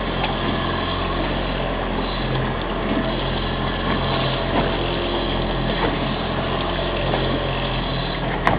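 Fishing boat's engine running steadily at trolling speed, an even hum that does not change. One short click sounds near the end.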